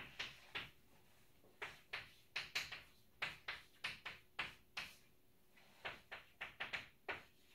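Chalk writing on a blackboard: a run of short, sharp taps and scratches in irregular clusters with brief pauses between them as symbols are written.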